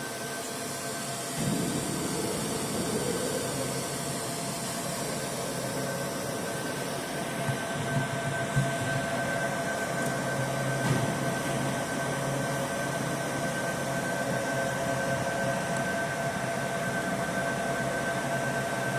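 CO2 laser marking machine running: a steady fan-like rush with a steady high whine over it. It gets louder and fuller about a second and a half in, and a few faint ticks come in the middle.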